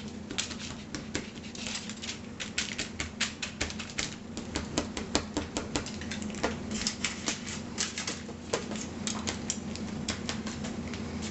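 Kitchen knife stabbing repeatedly through raw chicken thighs, its tip tapping the foil-lined pan below in rapid, irregular clicks, several a second, as holes are poked in the meat for seasoning.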